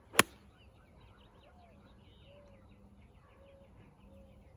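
A golf club strikes a golf ball off the fairway grass with a single sharp crack just after the start, followed by faint birdsong chirping in the background.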